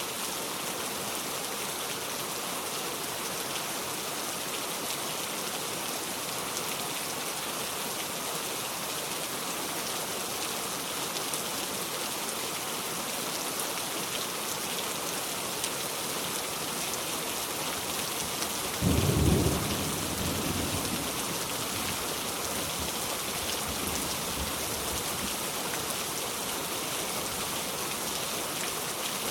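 Steady rain falling, with one short low rumble of thunder about two-thirds of the way through.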